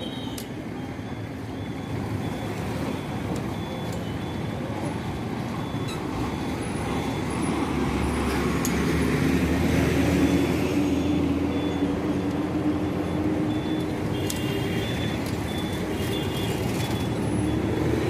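Road traffic passing close by: steady engine and tyre noise, with a heavy vehicle's engine swelling toward the middle and easing off again.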